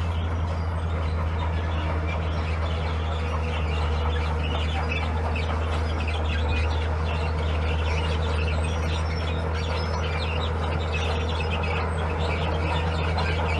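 Heavy diesel earthmoving machinery running steadily with a deep, even engine drone, with short high-pitched chirps scattered above it.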